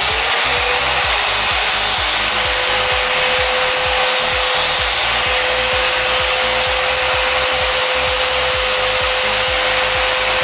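Angle grinder with a bottle-cap sanding attachment running at full speed: a steady high whine that climbs to pitch in the first half second as the motor spins up, over a loud rushing hiss.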